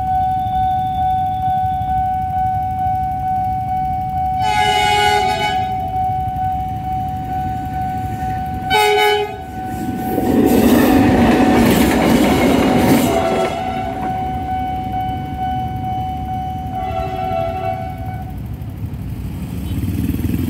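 A level-crossing warning alarm sounds a steady tone. A CC300 diesel locomotive blows its horn three times, a long blast about 4 s in, a short one about 9 s in and another near 17 s. Between them, from about 10 to 13 s, the locomotive passes over the crossing in a loud rush of engine and wheel noise.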